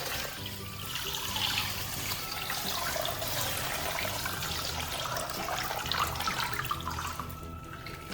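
Coloured water gushing and splashing out of a broken plastic bag.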